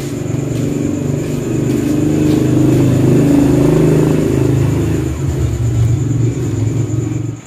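Motor scooter engine running, swelling a little louder midway and stopping abruptly at the end.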